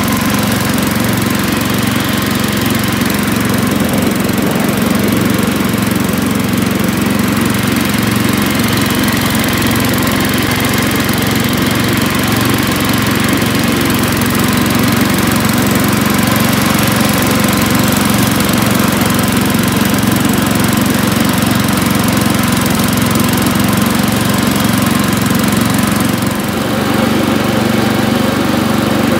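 The engine of a 1978 Montgomery Ward 11 hp garden tractor, built by MTD, running steadily while the tractor drives and mows with its 42-inch deck. The level dips briefly near the end.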